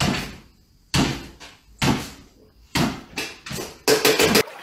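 A small dog's paws thudding on a wooden floor as it jumps up and down over and over, about one landing a second, with a quicker, louder run of knocks near the end.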